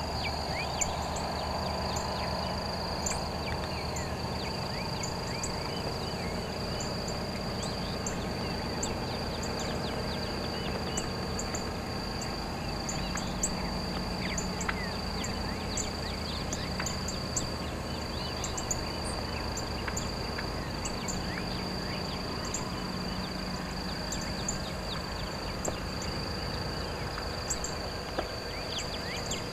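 Rural outdoor ambience: a steady, high insect drone with many short, high bird chirps and quick whistled calls scattered throughout, over a low steady rumble.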